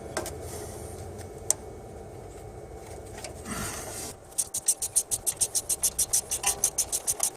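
Ratchet wrench clicking rapidly and evenly, about nine clicks a second for the last three seconds, as a bolt is spun off on the front hub assembly. Before that, only faint scraping and handling of tools.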